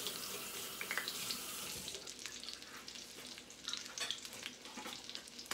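Salmon fillet searing skin side down in hot oil in a cast iron skillet: a dense sizzle for about the first two seconds, then a thinner sizzle with frequent crackling pops.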